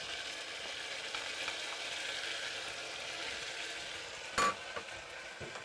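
Butter, hot sauce and maple syrup sizzling in a saucepan over a gas flame: a steady hiss. A single sharp clink comes about four seconds in.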